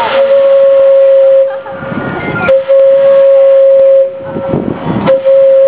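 Steam clock's steam whistle sounding three long blasts on one steady pitch, each lasting well over a second. There are short gaps between the blasts.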